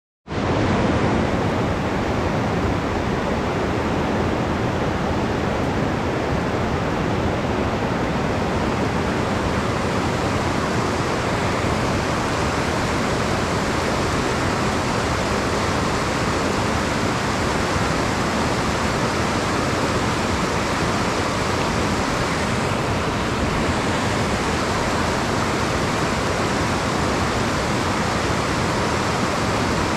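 Shallow rocky stream rushing over boulders in small rapids: a steady, unbroken rush of water.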